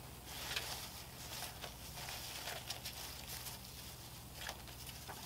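Faint rustling and shuffling of paper as a stack of old photos and cards is leafed through by hand.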